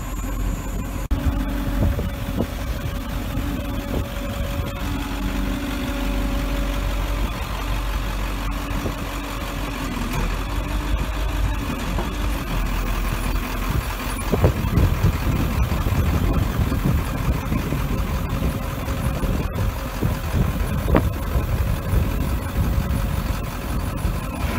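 1996 service truck's engine running steadily while its IMT 6016 hydraulic crane boom is swung and raised.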